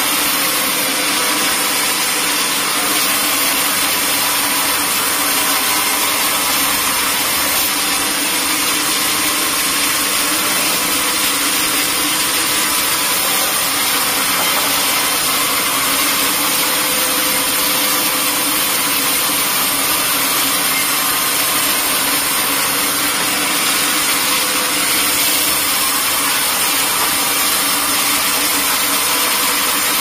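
Band sawmill running steadily, its blade cutting lengthwise through a teak log: an even, unbroken machine noise.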